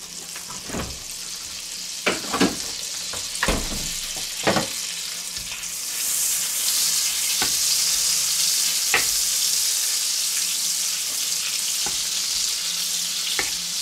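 A block of butter sizzling as it melts in hot bacon fat in a frying pan, pushed around the pan. The sizzle grows louder about six seconds in, with a few light knocks along the way.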